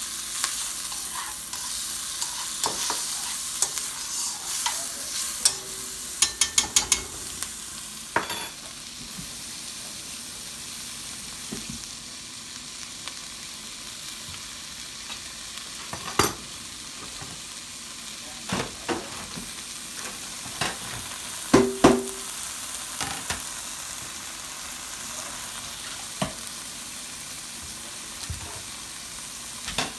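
Diced bell pepper, onion and minced garlic sizzling steadily in a wok, stirred with a spatula at first. Scattered clicks and knocks come over the sizzle, with a quick run of clicks about six seconds in.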